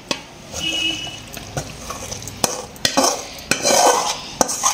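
Metal ladle scraping thick cooked vegetable stir-fry out of a metal kadai into a steel bowl: gritty scrapes with several sharp metal-on-metal clinks.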